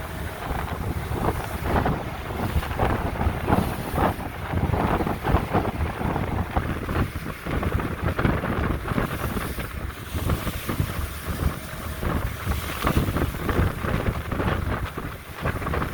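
Wind buffeting the microphone on a whale-watching boat under way at sea, in uneven gusts over the rush of water and the boat's running noise.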